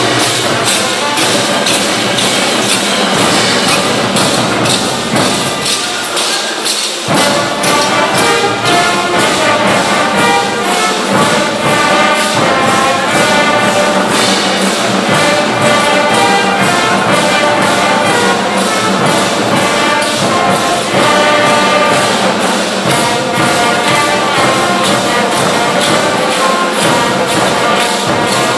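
Brass band music for a folk dance, with a steady, quick drum and cymbal beat under the brass melody. The bass drops out for a moment about seven seconds in.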